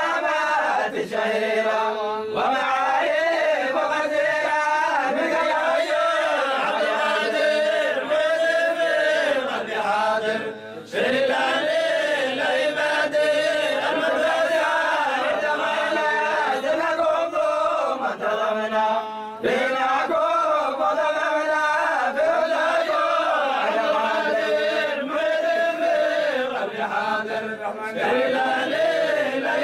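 A group of men chanting a Sufi dhikr of the Zayla'iyya order together in a melodic line, breaking off briefly twice.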